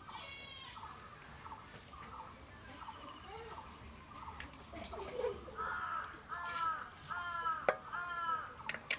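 Crow cawing: a run of four caws about a second apart in the second half, each falling in pitch, with fainter bird calls before them and a few sharp clicks.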